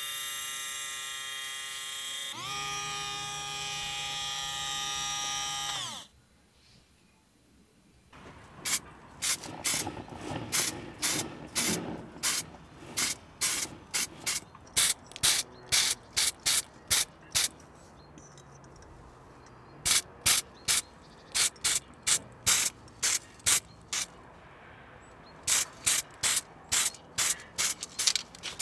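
A small electric motor runs with a steady whine for about six seconds, changes pitch once and winds down. After a short pause comes a long run of sharp mechanical clicks in irregular bursts, like a ratchet or catch being worked.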